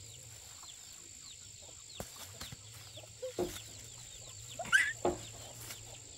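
Chickens clucking now and then, the loudest call about four and three-quarter seconds in, over a steady high-pitched hum, with a few short knocks.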